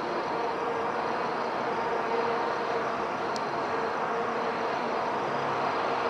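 Steady hum of city traffic at night, an even wash of noise with no distinct events.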